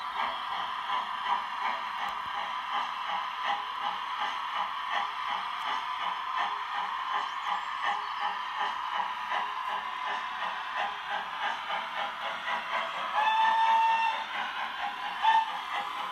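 Sound decoder of a model GWR Grange class 4-6-0 steam locomotive playing an even beat of steam exhaust chuffs as it runs. Near the end the whistle sounds for about a second, then gives one short pop.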